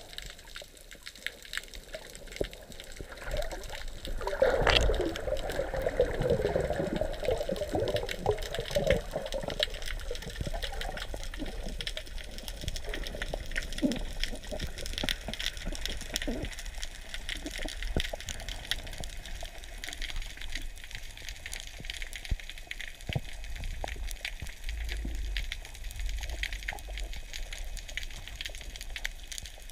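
Underwater ambience heard through a camera's waterproof housing: a steady rush of water dotted with scattered crackling clicks. A louder gurgling, bubbling stretch runs from about four to nine seconds in.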